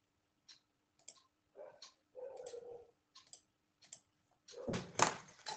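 Faint scattered light clicks and handling noises at a desk. There is a short low hum-like sound about two seconds in and a louder rustling burst about five seconds in.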